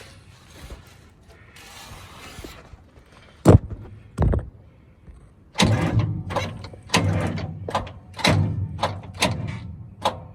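Metal knocks and clunks from working parts of the old excavator: two sharp knocks about a third of the way in, then a run of irregular clunks and rattles from about halfway on.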